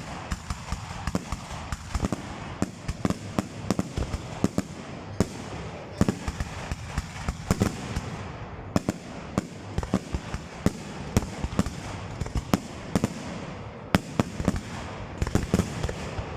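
Fireworks display: a rapid, irregular run of sharp bangs and crackles over a continuous low rumble.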